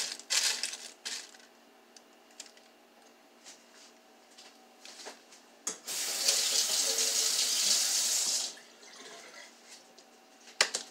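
Kitchen tap running into a sink for about two and a half seconds, then shut off. Plastic bag crinkling in the first second, and a sharp click near the end.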